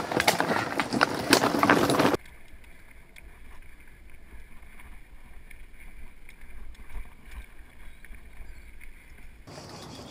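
Mountain bike clattering over a rocky trail, tyres and frame rattling on loose stones. About two seconds in it cuts to a much quieter low wind rumble on the microphone, with faint ticks.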